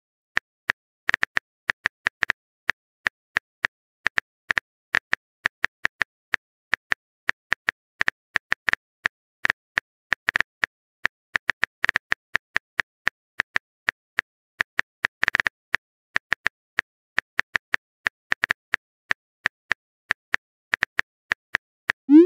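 Simulated phone-keyboard typing clicks from a texting-story app: short, sharp taps at an irregular pace of about three or four a second, as a message is typed out. A short rising pop starts right at the end as the message is sent.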